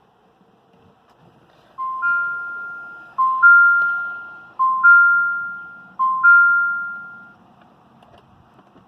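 Jeep Compass dashboard chime: a two-note rising ding-dong, sounded four times about a second and a half apart, each note ringing out.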